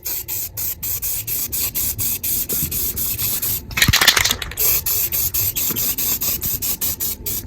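Aerosol spray paint can hissing in short, rapid bursts, about four a second, as a coat of paint is sprayed on; one louder burst about four seconds in.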